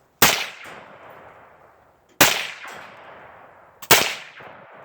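Three gunshots about two seconds apart, each sharp crack followed by a long fading echo.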